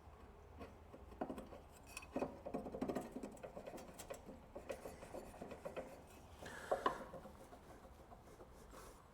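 Light clicks, taps and rubbing of metal parts being handled as the water pump's impeller is fitted back onto its shaft over the seal, with a busier cluster of taps around two to three seconds in and again near seven seconds.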